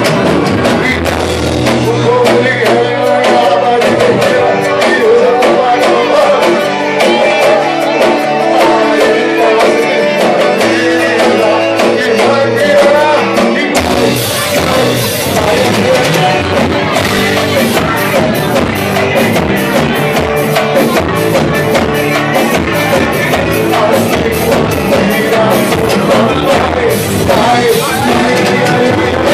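A live band playing a country song with singing, guitar and drums. About halfway through, the bass and a steady full drum beat come in.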